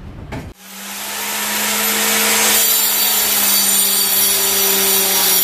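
Dekton DK115 mini circular saw's 1500 W motor starting about half a second in and running up to a steady whine. From about two and a half seconds in, the blade cuts through a wooden board, adding a rasping noise; the cut goes smoothly.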